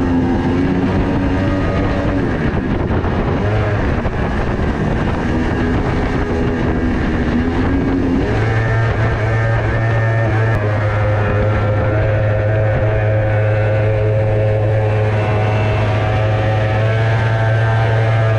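Mini jet boat's motor running under way. Its pitch shifts up and down for the first several seconds, then holds steady from about eight seconds in.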